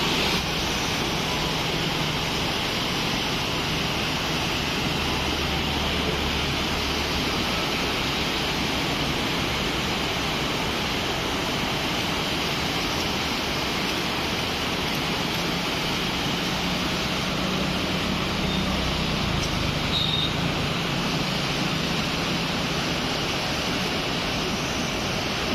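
Steady rushing of a flooded river's fast current, an even roar of water with no breaks.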